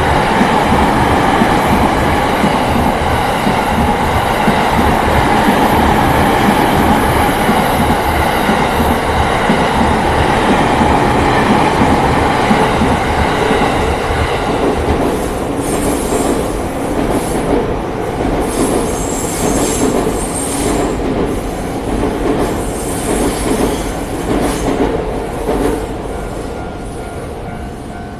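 A train passing close by over a level crossing, its wheels rumbling and clattering on the rails, with high wheel squeal over the second half. It fades near the end, and the crossing's warning bell rings through as a steady tone.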